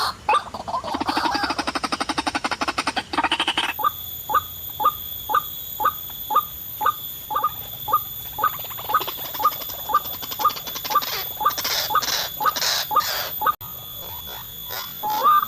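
White-breasted waterhen (ruak-ruak) calls: a monotonous series of short rising notes, about two a second, with a fast rattling chatter in the first few seconds. A steady high whine comes in about four seconds in.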